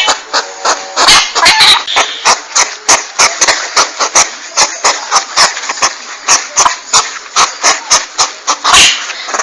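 Hedgehog calling: a fast, irregular run of sharp clicks mixed with short squeaky squeals, several a second, looped as a hunting lure.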